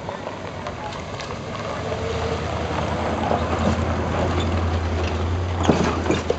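Pickup truck towing a boat trailer driving past on gravel: a low engine hum and tyre noise grow steadily louder as it comes close, with a few sharp clicks and rattles near the end as the trailer goes by.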